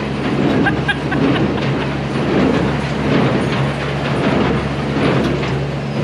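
Big square baler running on a test run after knotter maintenance: a steady low drone with mechanical clatter that swells about once a second with the plunger strokes.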